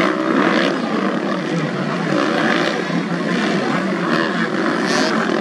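Several motocross motorcycle engines racing together, a dense overlapping engine noise whose pitches rise and fall as the riders rev up and back off.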